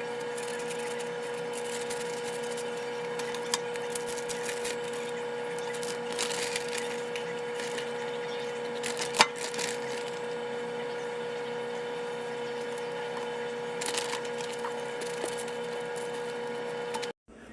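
A steady hum with irregular crackling and clicking over it, and one sharp click about nine seconds in.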